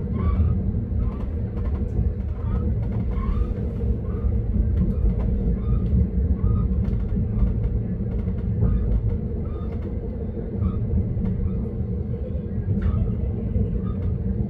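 Passenger train running, heard from on board: a steady low rumble with a constant hum and scattered faint clicks.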